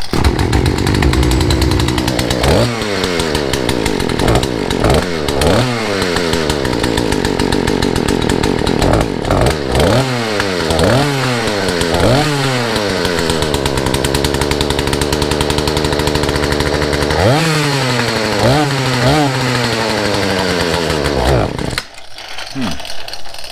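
Poulan Pro 34cc two-stroke chainsaw engine running and being revved in repeated throttle blips, each rising and then falling, with a steadier stretch in the middle. It will not hold an idle, and it dies about a second and a half before the end. The owner traces the stalling to a brittle fuel line sucking air and the carburetor flooding.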